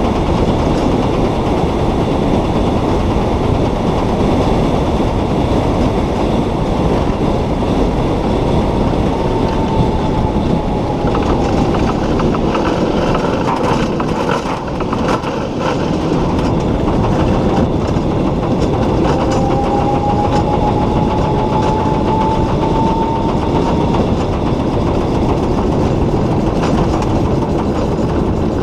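Solar race car at speed, heard from its cockpit: a loud, steady rumble of tyres and wind, with the electric drive motor's faint whine falling in pitch about a third of the way in and rising again about two-thirds through.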